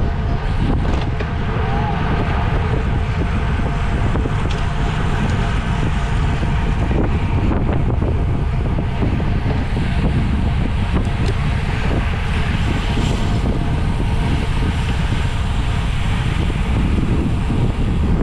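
Steady wind noise buffeting a camera microphone carried on a moving bicycle.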